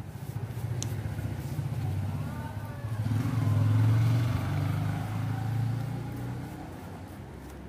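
A motor vehicle passing: a low engine hum that swells to its loudest about four seconds in, then fades away.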